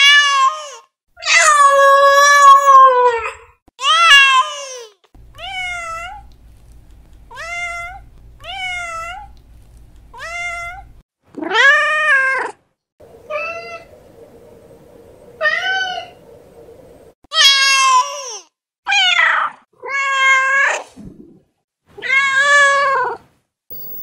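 Domestic cats meowing: a string of about fourteen separate meows of varying length and pitch, with one long drawn-out meow about two seconds in and a run of short, higher meows in the middle.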